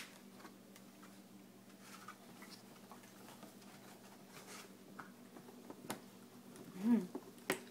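Dachshund puppies moving about in a cardboard box: faint light scratching and tapping over a steady low hum, with a few sharp clicks and a short low vocal sound about seven seconds in.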